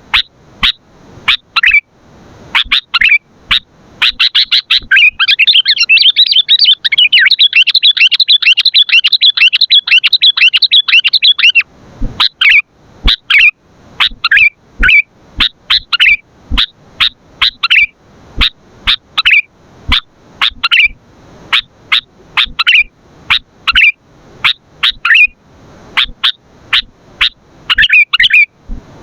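Sooty-headed bulbul (kutilang) calling: short, sharp notes repeated over and over, with a dense run of rapid chattering from about four seconds in to about eleven seconds.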